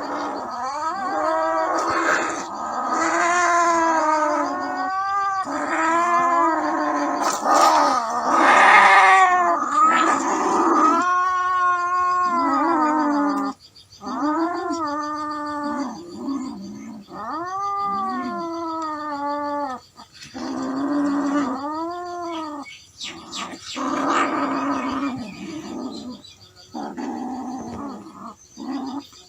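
Domestic cats caterwauling: long yowling howls that rise and fall in pitch, one after another with brief breaks, as cats do when squaring up to fight.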